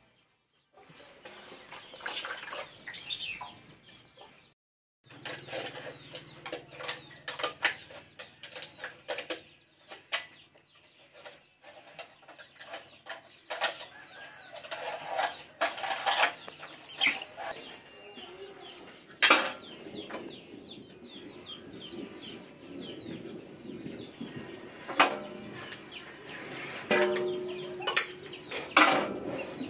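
Water splashing and sharp clinks and knocks as a plucked chicken and then its intestines are washed by hand in a metal basin, with short bird calls in the background.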